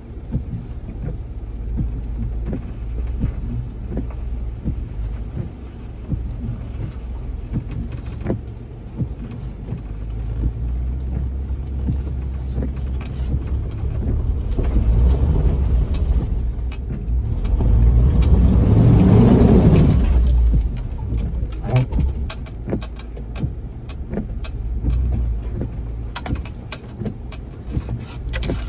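Ford Bronco crawling over rocks in four-wheel-drive low with its lockers engaged, heard from inside the cab: the engine runs with a low, steady rumble that builds to its loudest about two-thirds of the way through, with scattered clicks and knocks throughout.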